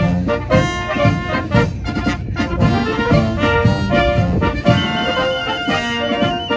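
Military brass band playing live: trumpets, trombones and tubas in a lively tune with short repeated notes.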